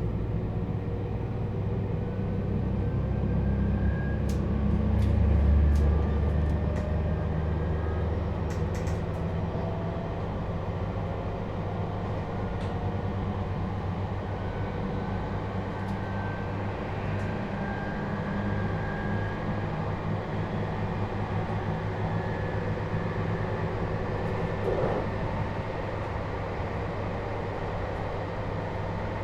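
JR Hokkaido 721 series electric train heard from inside a motor car fitted with a Toshiba GTO VVVF inverter, running between stations: steady wheel-and-rail rumble with faint inverter and traction-motor tones. It grows a little louder about five seconds in, with a run of sharp clicks over the next few seconds.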